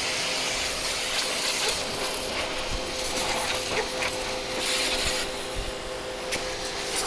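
Harbor Freight Portland 1750 PSI corded electric pressure washer running and spraying water: a steady motor-pump hum under the hiss of the spray.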